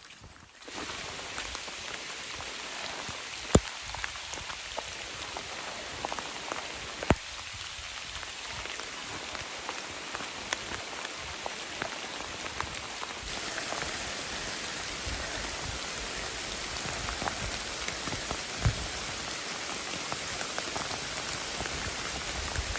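Steady rain falling, with a few sharp, louder drop hits; the rain gets louder a little past halfway through.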